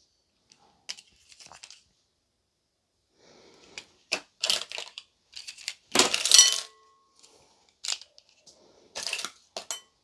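Small hard objects being handled and set down on a work surface, with light rustling and clicks. About six seconds in there is a sharp clatter that rings briefly.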